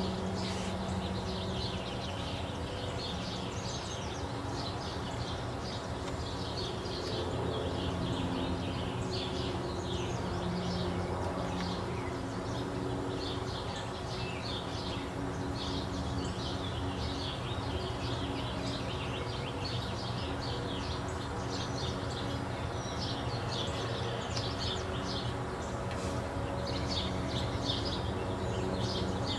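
Backyard birdsong: many small birds chirping and twittering continuously, over a steady low background rumble.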